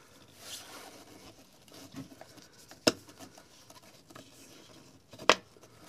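Small metal pick scraping and prying at the plastic quick-connect clip of a fuel line on a fuel pump module, with faint scratching and two sharp clicks, about three and five seconds in.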